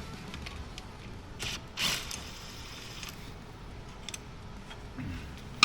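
Hand tools working the valve cover bolts on a car engine: scattered metallic clicks and ratchet-like ticks, with two short scraping rasps about a second and a half and two seconds in.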